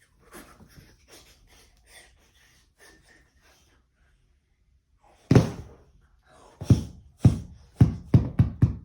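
Sword-fight sound effects: a run of sharp sword strikes, one just past halfway and then six in quick succession near the end, after faint rustling.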